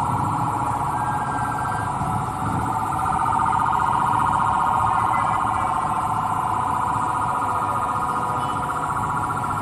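An electronic alarm sounding continuously with a fast warble, over a low rumbling background noise.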